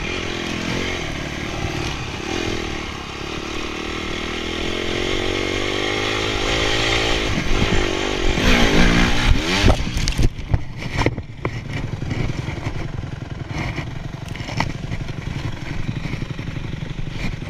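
2006 Honda CRF250X four-stroke single-cylinder dirt-bike engine running along a trail, then revving up hard with a rising pitch as the throttle goes to full gas off a bump, which the rider blames on a super-sensitive throttle. About ten seconds in, the bike crashes with a burst of loud knocks and clatter. After that there is a lower rumble with scattered knocks.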